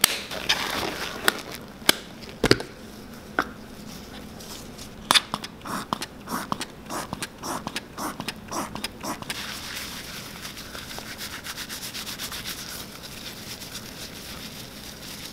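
Nitrile gloves pulled on with a few sharp snaps. Then a run of clicks as foam cleaner is pumped onto shoelaces, then the foamy laces rubbed and scrubbed between gloved hands in a steady rubbing.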